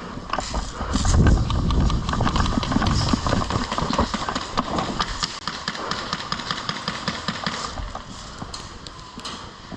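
Quick running footsteps, a fast irregular run of sharp knocks with heavy low bumping early on, thinning out near the end.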